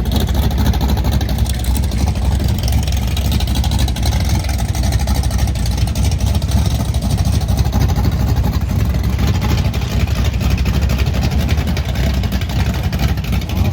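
Drag-racing car engine running loud and steady, a fast stream of firing pulses heavy in the low end, with no clear rise or fall in revs.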